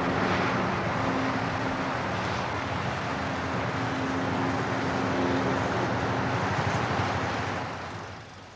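Steady noise of road traffic, cars and vans driving across a suspension bridge, with a faint hum running through it. It fades away over the last second or so.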